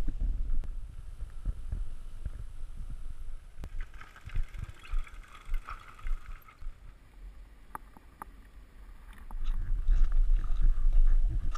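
Wind rumbling on a body-worn camera's microphone, loud at first, dropping back in the middle and rising again near the end, with scattered knocks and clicks throughout.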